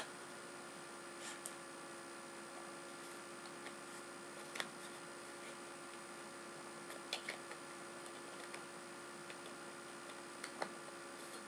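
A steady electrical hum with a few faint, scattered clicks and taps as a 55mm lens is handled and fitted back onto an SLR camera.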